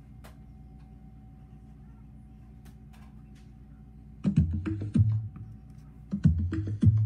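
Portable Bluetooth speaker playing two short bursts of bass-heavy, percussive music, the first about four seconds in and the second about two seconds later. A few faint clicks come before them.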